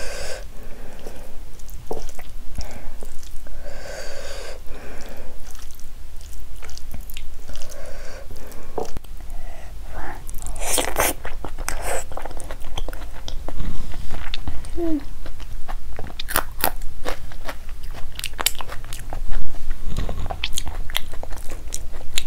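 Close-miked eating by hand: wet chewing and mouth clicks on mouthfuls of rice mixed with palak paneer, with crunchy bites now and then.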